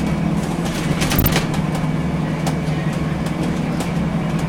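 Scania L94UB city bus's CNG engine running under way, a steady low drone heard inside the passenger cabin, with short interior rattles, the most prominent about a second in.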